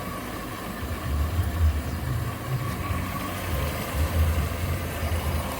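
Volkswagen Fox engine idling in second gear, so the jacked-up front wheel hub and brake disc spin freely; a steady, uneven low throb.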